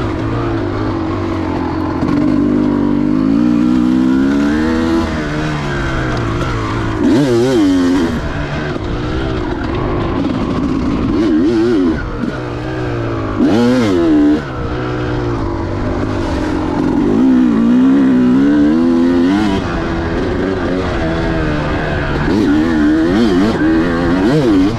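2004 Kawasaki KX250's single-cylinder two-stroke engine being ridden hard, its pitch rising and falling again and again as the throttle opens and closes, with a few sharp quick revs.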